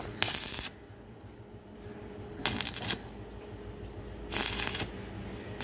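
Stick-welding arc crackling in three short bursts of about half a second each, spaced roughly two seconds apart, as the electrode is struck and held briefly to weld the joint in short runs.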